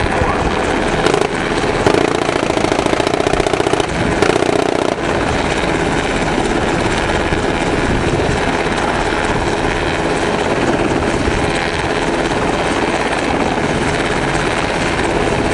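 Navy SH-60 Seahawk helicopter in flight: the rapid, steady chop of its rotor blades, louder in the first few seconds.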